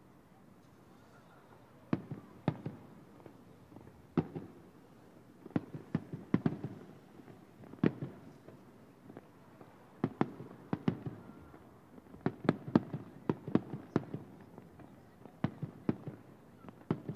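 Aerial firework shells bursting about a kilometre away. Single bangs and quick clusters of booms begin about two seconds in, each followed by a short low rumble, and come thickest a little past the middle.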